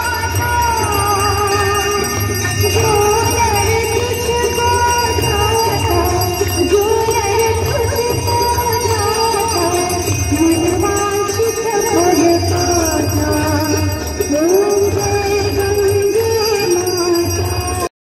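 Devotional aarti hymn sung to a wavering melody, with bells ringing steadily throughout; it cuts off suddenly at the end.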